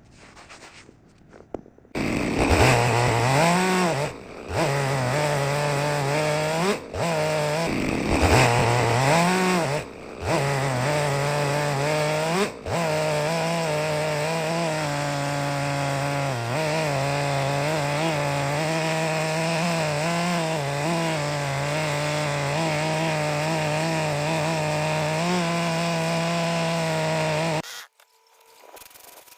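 Chainsaw running at high revs and cutting wood. Its pitch dips briefly and climbs back up several times in the first half, then holds steady before the saw stops suddenly near the end.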